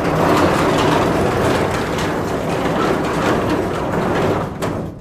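Protective shutter on a heavy truck moving with a continuous rattle of many small clicks. There is a louder clack near the end, after which the sound dies away.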